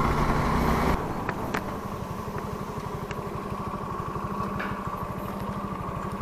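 Suzuki V-Strom SX250's single-cylinder engine running with road and wind rush for about a second, then pulsing evenly at low revs as the bike rolls slowly off the road.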